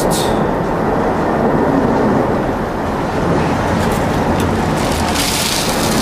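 Steady low outdoor rumble with no speech. About five seconds in, a hissing rattle starts as crystal cat litter is poured from a plastic jug into a nylon stocking.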